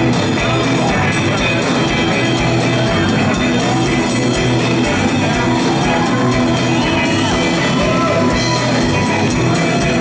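Live rock band playing: electric guitars, bass guitar and drum kit at full volume, recorded from among the audience.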